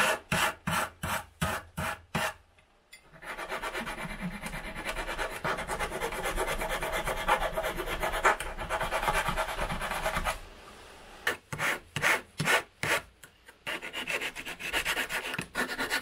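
Small hand file rasping across the cut end of an aluminium profile to remove burrs. It starts with separate strokes, about four a second. From about three seconds in there is some seven seconds of fast, continuous filing, and then separate strokes again towards the end.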